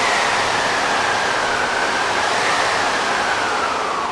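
Puppet-theatre stage wind effect making a storm wind: a steady rushing howl with a whistling pitch that sinks slowly toward the end.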